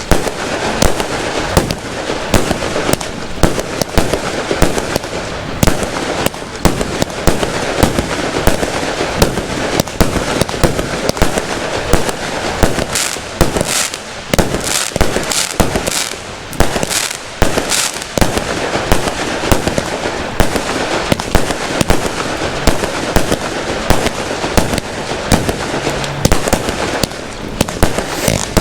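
Fireworks going off in quick succession: a continuous stream of bangs and crackles, with a run of sharper cracks around the middle.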